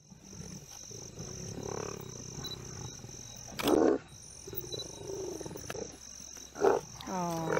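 Lions growling at a kill, with two loud short bursts about three seconds apart and a falling call near the end. Crickets chirp in a steady pulse, about two a second, behind them.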